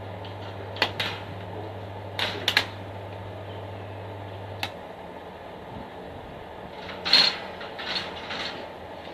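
Steady low hum of a stick welder, which cuts off with a click about halfway through, among scattered clicks and knocks of handling metal.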